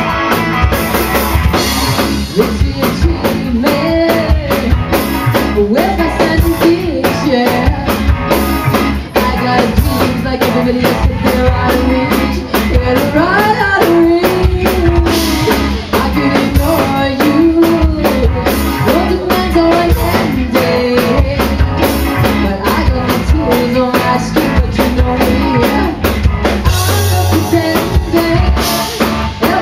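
Live rock band playing: electric guitars, bass guitar and a drum kit keeping a steady beat, with a woman singing lead.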